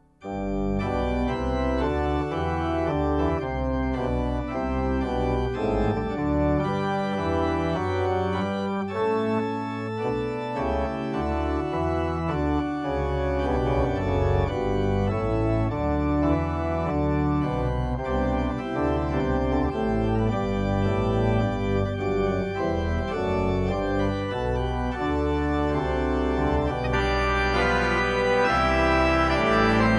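Church organ playing a postlude in sustained chords over a moving bass line, after a brief break right at the start.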